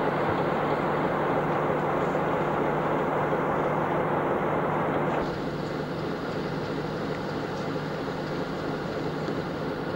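Engine of a PKP ST43 diesel-electric locomotive, a Sulzer twelve-cylinder diesel, running with a steady low drone. About five seconds in the sound drops a little and turns duller.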